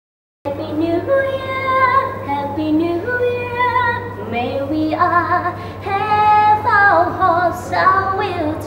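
A woman singing a slow song with held, wavering notes over a backing track, coming in after a brief silence about half a second in.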